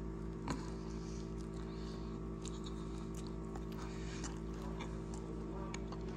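Quiet background music holding a steady low chord, with a few faint clicks over it.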